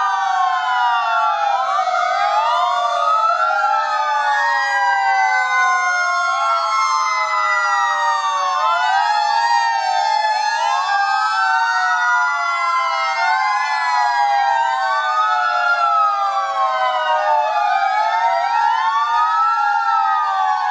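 Sirens of several fire engines wailing together, many overlapping tones sliding up and down out of step with one another, steady in loudness throughout.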